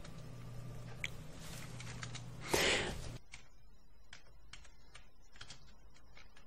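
Faint, irregular keystroke clicks from typing on the Amiga 1200's built-in keyboard, with a brief louder rush of noise about two and a half seconds in. A low hum underneath stops about three seconds in.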